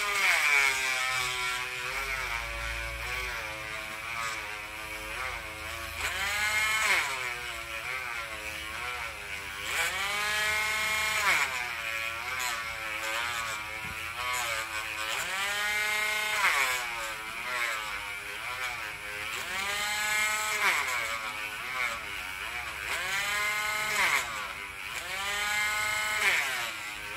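Handheld cordless rotary tool running with a sanding bit against a silver coin ring. Its motor whine sags in pitch each time the bit is pressed into the metal and climbs back as the pressure eases, over and over every few seconds.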